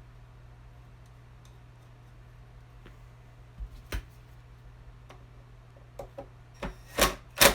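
Handling noise from reassembling a tile saw's motor: a few scattered clicks and knocks of parts and tools being handled, the loudest two close together near the end, over a faint steady hum.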